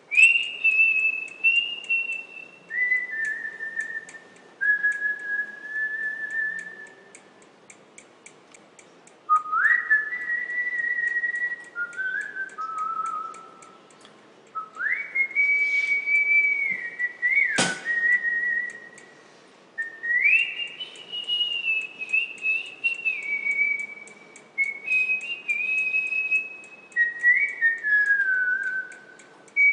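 A person whistling a slow tune, long held notes stepping and sliding up and down, with a single sharp click about two-thirds of the way through.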